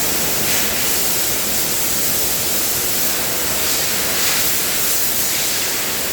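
High-pressure water jets from a Kärcher HD 14/13 Cage Food pressure washer's spray bar hissing steadily against a conveyor belt, the hiss brightening briefly a few times.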